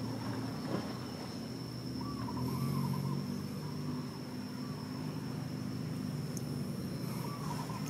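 Steady low mechanical hum under a thin, steady high whine, with a bird's wavering call twice: about two seconds in and again near the end.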